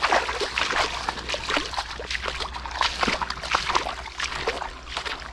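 Footsteps squelching and splashing through waterlogged mud, grass and shallow water, several irregular steps a second.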